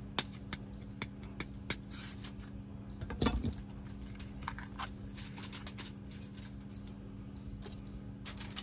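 Scattered light clicks and taps of a plastic spice jar being opened and shaken, chili powder sprinkled over a fish on aluminium foil, with one louder knock about three seconds in. A steady low hum runs underneath.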